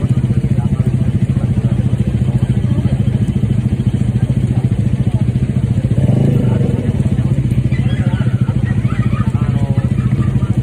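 A steady, low engine drone with a rapid even pulse runs throughout. Faint voices of people come through about six seconds in and again near the end.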